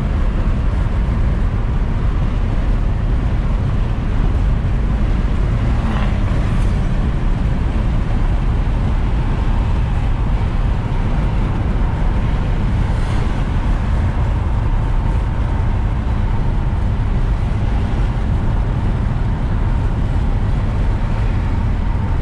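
Steady road and engine noise inside a car travelling at speed, swelling briefly twice.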